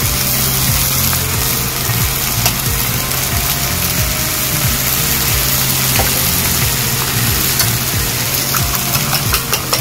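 Spinach wilting in hot oil in a frying pan, a steady sizzle, with a few light clicks near the end.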